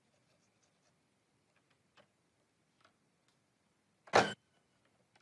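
A few faint taps, then one loud, sharp wooden knock about four seconds in, as a wooden plank knocks against the wooden workbench.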